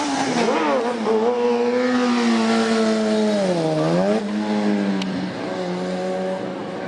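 Sport motorcycle engine held at high revs during a wheelie. The pitch wavers, drops about three and a half seconds in and climbs back, then holds steady while growing a little quieter.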